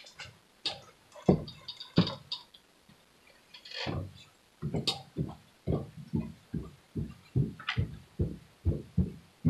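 Handling of the pants fabric, zipper and pins on a cutting mat while pinning: a few light knocks and a brief rustle, then, from about halfway, a run of soft regular thumps, about three a second.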